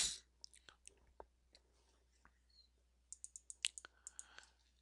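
Faint, scattered clicks of a computer mouse, with a quick run of several clicks about three seconds in.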